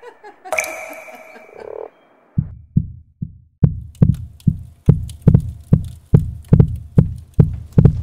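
Electronic soundtrack: a ringing synthesized tone in the first two seconds, then, after a short gap, a steady run of deep thumps, each dropping in pitch, about two and a half a second and growing louder.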